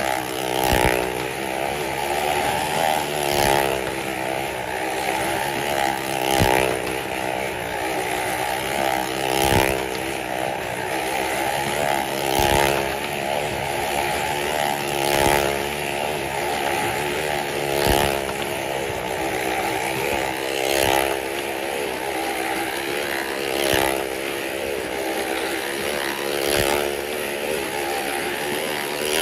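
Motorcycle engine running hard as the rider circles the wall of a well-of-death drum, its sound swelling about every three seconds as the bike passes round.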